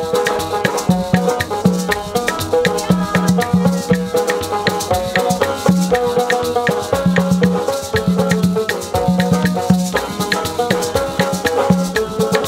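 Haitian acoustic band playing a lively tune: strummed banjo and acoustic guitar over a quick, steady rhythm of hand percussion, with repeated low bass notes.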